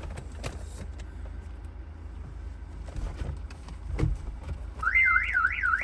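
A few faint knocks, then near the end the Honda's car alarm goes off: a loud, fast up-and-down warbling siren, about four sweeps a second, broken by a steady tone. It is set off just by touching the car.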